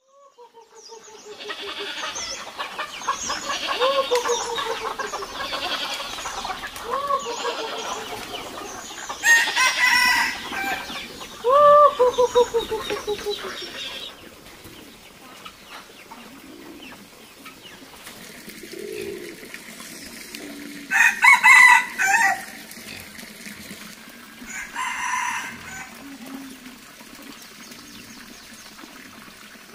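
Farmyard fowl: chickens clucking and roosters crowing, a string of separate calls. The busiest stretch is in the first half, with loud calls about ten, twelve and twenty-one seconds in.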